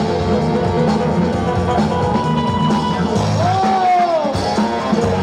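Loud rock-style music playing, with a pitched sound that rises and then falls about three and a half seconds in.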